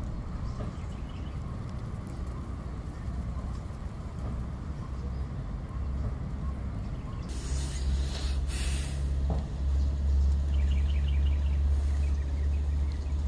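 Low, steady rumble of a motor vehicle engine running nearby, growing louder about halfway through, with two short hisses around eight seconds in.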